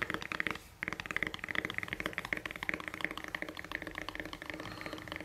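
Fingernails tapping fast on a smartphone and its case: a quick run of taps, a short break under a second in, then a steady stream of rapid, light clicks.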